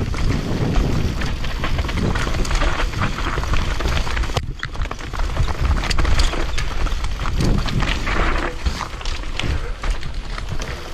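Commencal V4.2 downhill mountain bike descending a rough trail at speed, heard from a GoPro on the rider: tyres grinding over the ground, the chain and frame rattling with frequent sharp knocks, and wind on the microphone. The noise drops out for a moment about four and a half seconds in.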